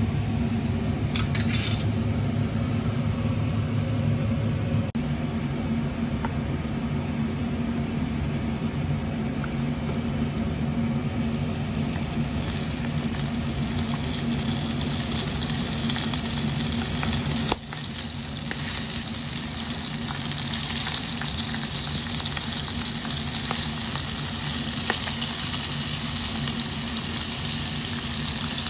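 Flour-coated prawns deep-frying in hot oil, a steady sizzle and bubbling that grows brighter about twelve seconds in. A steady low hum runs underneath.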